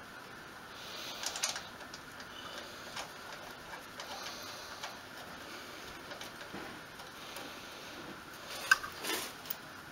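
Faint, irregular ticking and small handling clicks, with one sharper click near the end.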